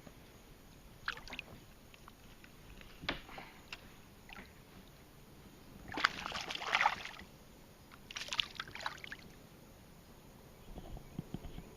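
Water splashing and sloshing in several short bursts, the loudest about six seconds in, from a hooked bass at the side of a boat as it is landed.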